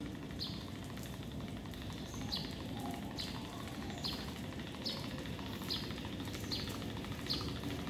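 A bird repeating a short, high, downward-slurred chirp about once a second, over a steady low background rumble.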